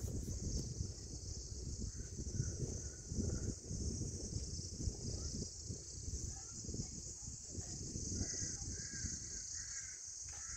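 Steady high-pitched insect drone from the surrounding forest, with short bird calls repeating through the second half and a low, uneven rumble underneath.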